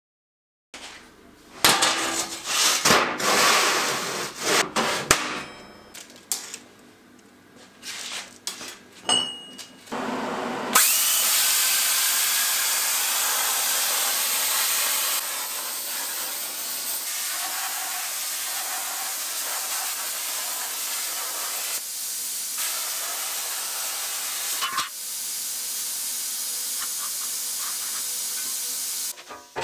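Handheld plasma cutter cutting a strip from steel sheet: a steady, loud hiss of air and arc that starts suddenly about eleven seconds in and cuts off shortly before the end. Before it come a few seconds of loud, rough power-tool work on the steel sheets, then quieter clatter.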